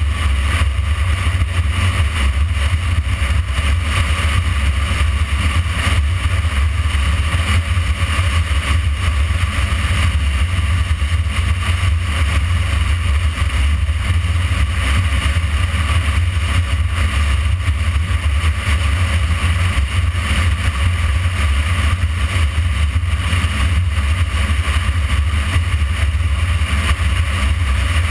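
Motorcycle cruising at a steady speed: a constant low wind rumble on the camera's microphone over the hiss of engine and road, with no change in speed or revs.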